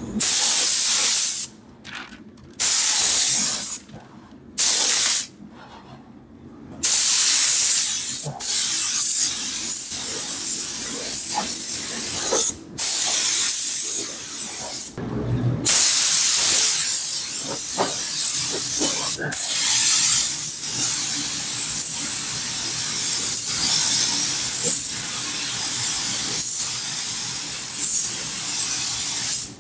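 Gravity-feed paint spray gun on compressed air, hissing as it sprays paint: a few short trigger pulls about a second long at first, then long, nearly unbroken passes with brief pauses.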